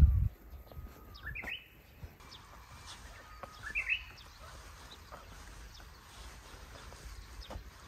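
Japanese bush warbler singing its 'hoo-hokekyo' song twice, about two seconds apart: each time a steady whistled note, then a quick run of higher notes. A brief loud low thump at the very start.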